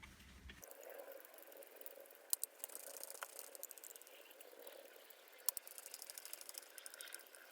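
Small mechanical parts clicking and rattling as they are handled: two sharp clicks, each followed by a run of fast, light ticking.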